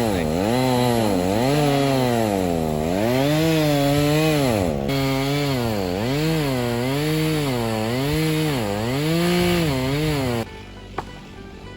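Two-stroke chainsaw cutting into a cedar trunk to fell it, its engine pitch dipping under load and picking up again about once a second as the chain bites. The saw cuts off suddenly near the end, leaving a much quieter background with a single sharp click.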